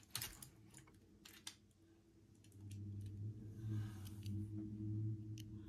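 Light clicks and taps of small items being handled, then a low steady hum from about halfway through.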